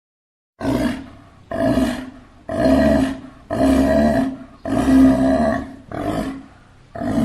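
Sea lion barking: a series of about seven loud, drawn-out barks, roughly one a second, starting about half a second in.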